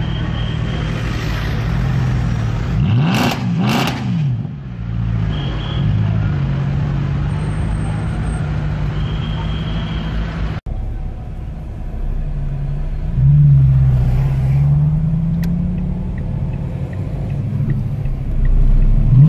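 Mercedes-Benz C63 AMG Black Series' 6.2-litre V8, tuned to a claimed 750 hp, running at low speed with its exhaust note rising and falling. There are two short sharp revs about three seconds in, and it gets louder with a rev about two-thirds of the way through.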